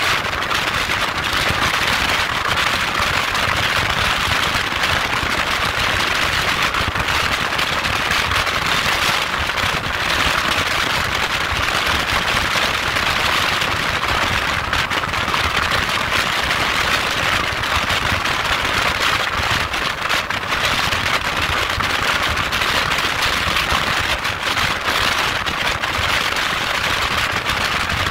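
Wind rushing over the microphone of a motorcycle riding at highway speed. It is a steady, loud rushing noise with a rough, crackly texture.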